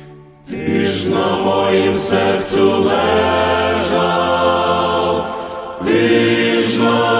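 Choral singing that comes in about half a second in after a brief lull, with a short break late on before the voices return.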